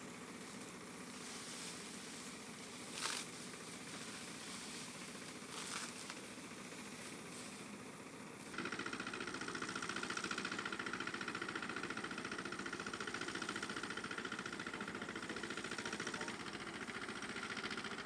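Faint background with two short knocks, then a little past halfway a steady engine-like running sound sets in abruptly and continues, with a strong whining band.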